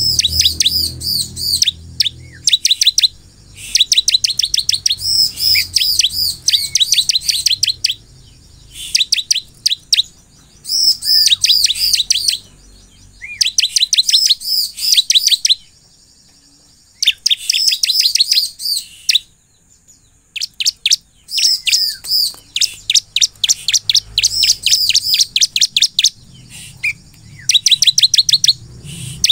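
Caged bar-winged prinia (ciblek) in full song: loud bursts of rapid, high chirping notes, each burst lasting one to four seconds, repeated again and again with short pauses between.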